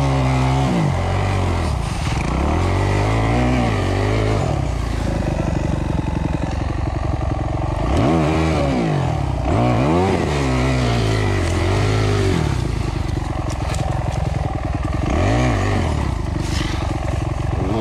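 2008 Kawasaki KX250F single-cylinder four-stroke engine running on and off the throttle. Its pitch rises and falls about six times, with some clatter from the bike.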